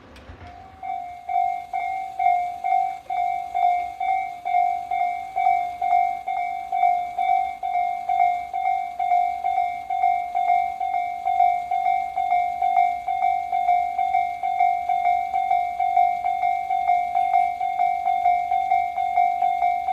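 Japanese level-crossing electronic warning bell of the Tobu Tojo-line type starting up about a second in, then ringing a rapid, evenly repeating ding. Its start signals that a train is approaching the crossing.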